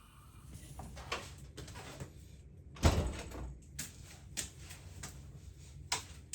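Knocks and clatters of household cleaning work, with one heavier thump about three seconds in and a few sharper clicks after it.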